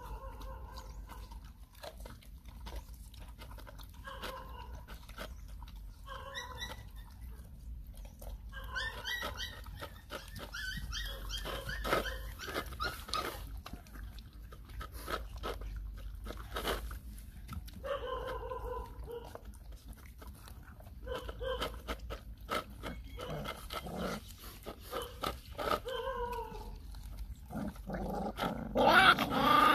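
Puppies eating from a plastic bowl, with scattered clicks of chewing and licking and repeated short whining calls and growls. A louder cry comes near the end.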